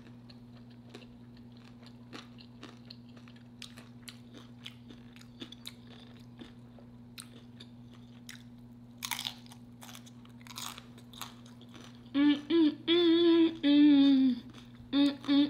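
Close-up chewing of crunchy homemade nacho chips, many small crisp crunches with two louder bites a little past the middle. About three seconds before the end, a woman starts humming a melody in held notes.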